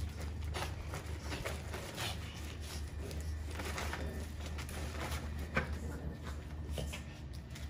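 Light scattered clicks and rustles of miniature Schnauzer puppies moving about on a concrete patio and nosing at a plastic tarp, over a steady low hum; one sharper click comes about five and a half seconds in.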